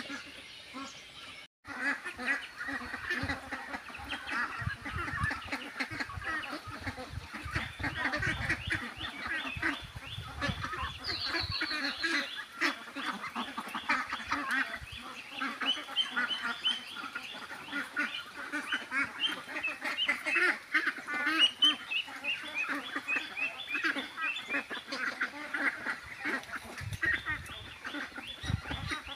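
Flock of domestic ducks quacking, many calls overlapping without a break, with a brief gap about a second and a half in.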